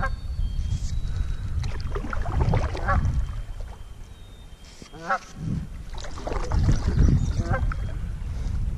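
A large waterbird calling repeatedly: several wavering calls a couple of seconds apart, over a steady low rumble.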